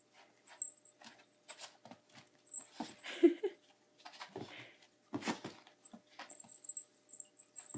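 A puppy playing with a toy: scattered light knocks and scuffles, with one short pitched squeal about three seconds in.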